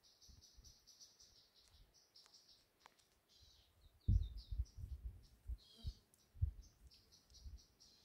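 Insects chirping in rapid trains of short, high-pitched pulses, with a few brief bird calls among them. Low thumps and rumbling come in from about four seconds in and are the loudest sound.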